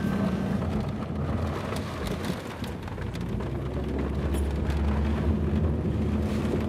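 Heavy rain and gusting squall-line wind beating on a moving car, heard from inside the cabin. A steady low rumble of wind and road noise swells for a second or two near the middle.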